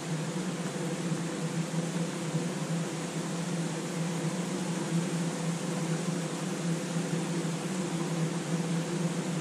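Steady, even hiss over a low, constant mechanical hum, with no thunder claps.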